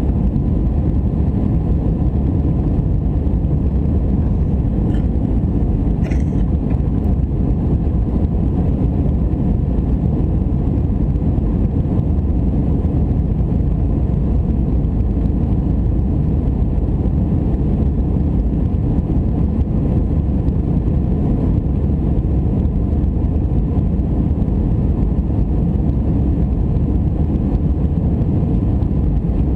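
Steady jet roar heard inside the cabin of an Airbus A319 in flight, the engines and rushing air making a loud, even low noise with a thin steady tone above it. A couple of faint ticks about five and six seconds in.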